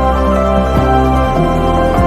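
Calm new-age background music: sustained soft chords with slow note changes.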